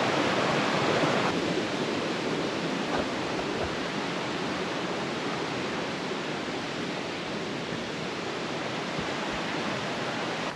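Fast-flowing mountain river rushing over rocks: a steady wash of water noise, a little louder for about the first second.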